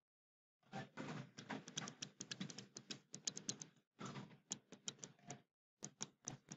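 Pen stylus tapping and scratching on a tablet screen while writing by hand: a quick, irregular run of faint clicks and scrapes, thinning to a few separate taps near the end.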